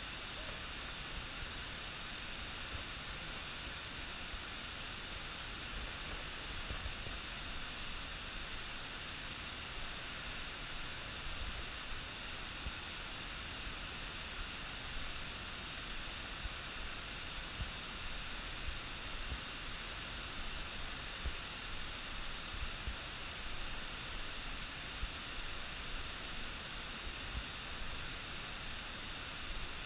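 Steady rushing of a mountain stream in the gorge below, with faint irregular low thumps, more frequent in the second half.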